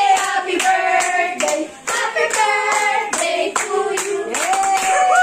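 A small group singing a birthday song together and clapping along about twice a second. Near the end the clapping stops and the voices glide up into one long held final note.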